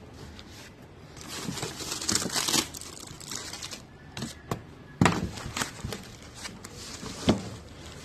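Box packaging being opened and handled: rustling and crinkling, with two sharp knocks, about five seconds in and again about seven seconds in.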